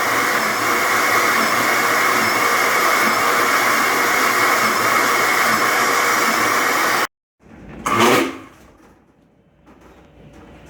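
Electric blender running steadily, blending a thick mix of onion, garlic, lemon juice and honey with no added water; it cuts off abruptly about seven seconds in, followed by one short sound a second later and then low room sound.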